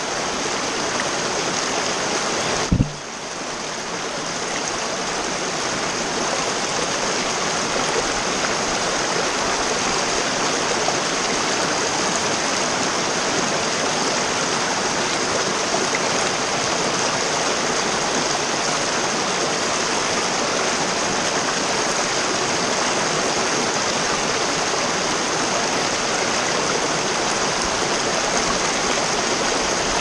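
Small mountain stream rushing and splashing over rocks, close by and steady. One sharp knock about three seconds in.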